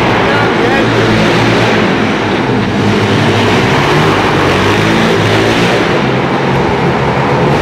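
Pit bike engine running hard, its note rising and falling as the throttle is worked.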